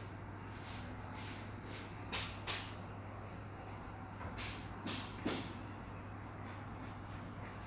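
Broom sweeping a floor: short, hissy swishes about two a second in two runs, the loudest two about two seconds in, over a steady low hum.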